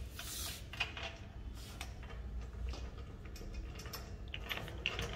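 Light clicks and ticks of a small rubber wheel and its nut being worked onto an axle bolt by hand at the base of an air compressor tank, with a quicker run of clicks near the end as the nut is turned.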